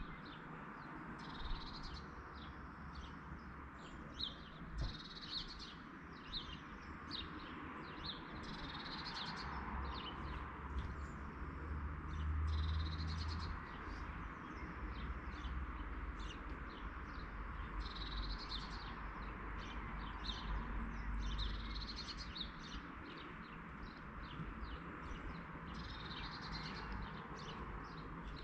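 Songbirds chirping steadily with many short, high calls overlapping, over a steady background hiss and a low rumble that swells around the middle.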